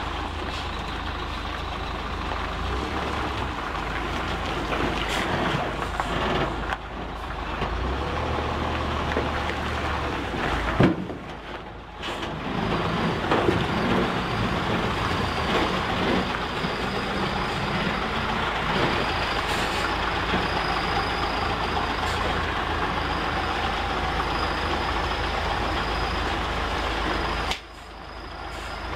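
Diesel engine of an Isuzu Giga FVZ self-loader truck running steadily as it hauls a tracked excavator. The sound comes in several short segments with abrupt cuts, and there is a single sharp knock about eleven seconds in.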